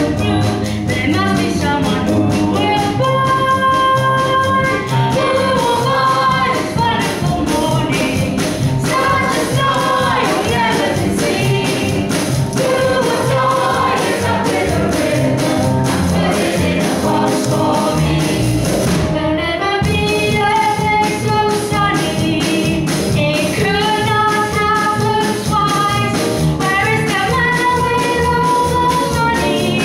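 A female singer performing a song with held, wavering notes over accompaniment with a steady beat, with a brief break in the accompaniment about two-thirds of the way through.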